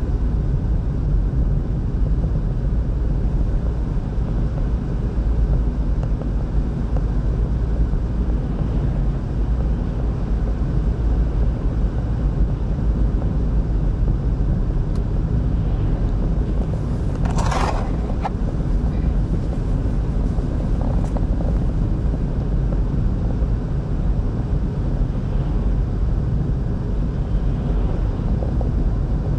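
Steady low rumble of a car's engine and tyres on the road, heard from inside the cabin. A brief sharp rush about two-thirds of the way through, around when an oncoming truck would pass.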